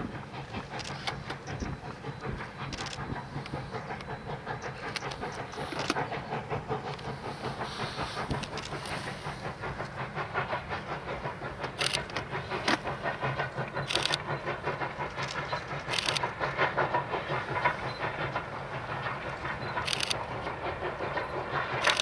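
Cumbres & Toltec narrow-gauge steam locomotive working a train, its exhaust chuffing and hissing over the rattle of the cars, growing louder toward the end. A few sharp clacks come in the second half.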